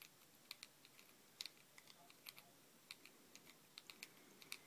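Faint, irregular light clicks, about two or three a second, from a precision Torx screwdriver (T7) turning a small screw into a titanium lockbar stabilizer on a folding knife's handle.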